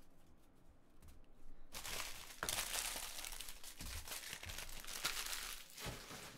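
Foil trading-card pack wrappers crinkling as a hand grabs and crumples them. The crackle starts about two seconds in and lasts about four seconds.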